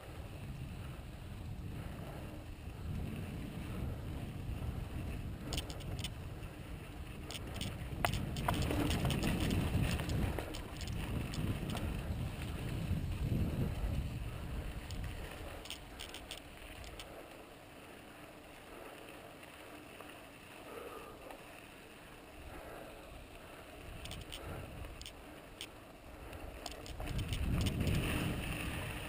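Santa Cruz Tallboy LT mountain bike rolling along a dirt trail: wind rumbling on the camera microphone and tyre noise, with occasional sharp clicks and rattles from the bike. It grows louder from about eight seconds in, eases off in the middle, and swells again near the end.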